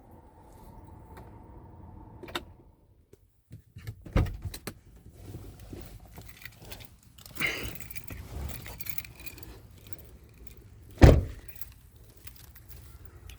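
Keys jangling, with scattered clicks and rattling handling noises, and one loud thump about eleven seconds in.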